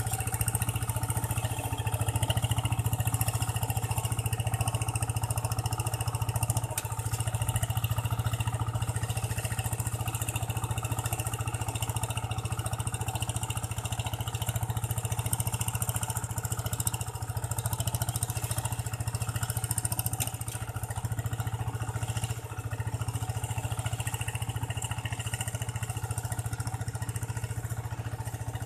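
Kubota two-wheel hand tractor's single-cylinder diesel engine running steadily under load as it drags a levelling board through a flooded paddy, slowly growing fainter as it moves away.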